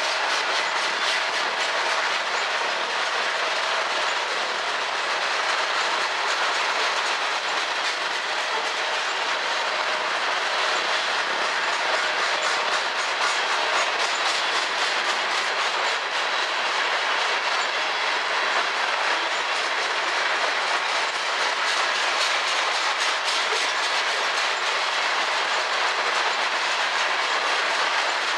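Covered hopper cars of a freight grain train rolling past: a steady rush of steel wheels on the rails, with repeated clicking as the wheels cross the rail joints.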